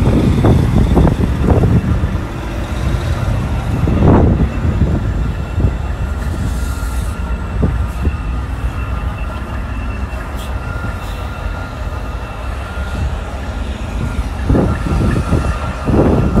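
Semi-truck's diesel engine and road noise rumbling, heard from inside the cab while driving, with a steady faint whine and a few low thumps, the strongest about four seconds in.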